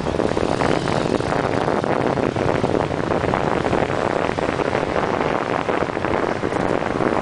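Wind buffeting the microphone of a camera on a moving bicycle, a loud, steady rushing with constant fluttering.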